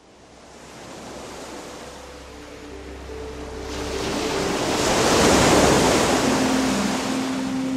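Ocean surf fading in from silence and swelling to a peak about two thirds of the way in, with soft held music notes underneath.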